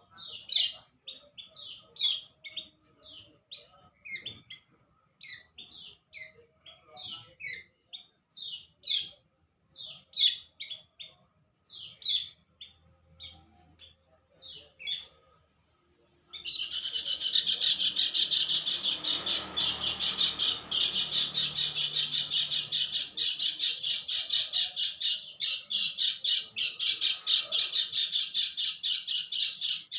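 A bird calling with short, high, falling chirps. About halfway through it breaks into a loud, rapid, continuous chattering trill.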